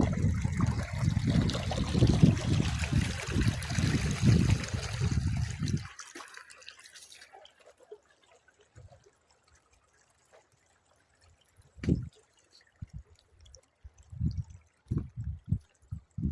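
Running water trickling and splashing for about the first six seconds, then fading away to near quiet. Near the end there are a single knock and a few soft low thuds.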